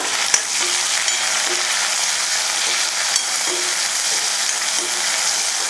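Sliced red onions sizzling steadily in hot oil in a stainless steel kadai, stirred with a spatula, with a couple of brief sharp clicks.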